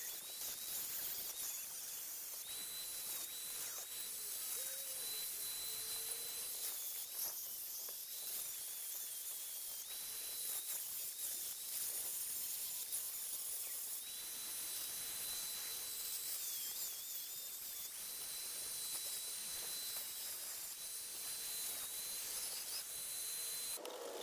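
Corded angle grinder cutting through square steel tubing: a steady high whine over a grinding hiss, the pitch dipping slightly each time the disc bears down on the steel. It stops just before the end.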